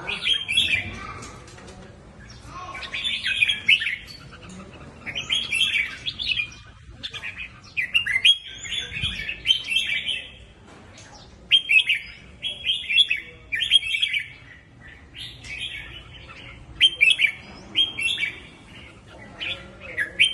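Red-whiskered bulbul singing: a run of short, bright, warbled phrases with pauses of a second or two between them.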